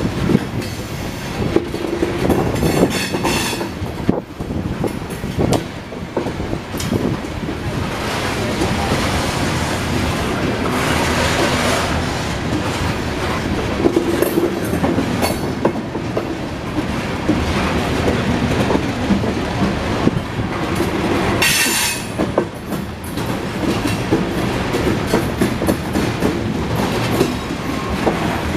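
Covered hopper cars of a Norfolk Southern freight train rolling past, steel wheels clicking over the rail joints in a continuous rumble. A few brief high-pitched wheel squeals come through, the clearest about two thirds of the way in.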